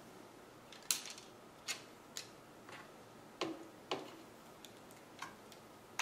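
Light, irregular clicks and taps of a 2.5-inch laptop hard drive and its metal bay parts being handled as the drive is worked free of a MacBook Pro's case.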